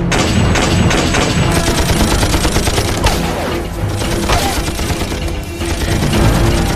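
Light machine gun firing rapid, sustained bursts, over background music.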